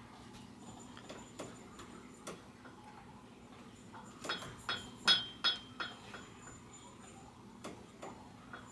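Light handling noise from greasing a bike fork's upper tubes: scattered soft taps and clicks, with a quick run of sharp metallic clinks a little past halfway.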